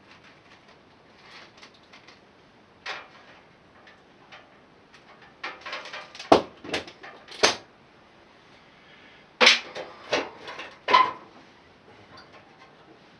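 Hand tools and metal parts knocking and clinking as someone works on the mower: a single knock, then two quick clusters of sharp clacks.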